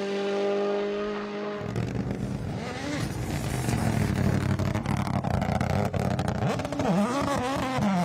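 Rally car engines at full throttle: a steady, high engine note held for about a second and a half, then a cut to another car running hard over rough noise, its revs rising and falling near the end.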